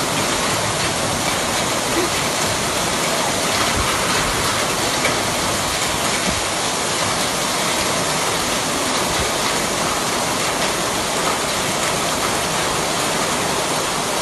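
Heavy rain pouring down in a steady, dense hiss, with water running over a flooded street.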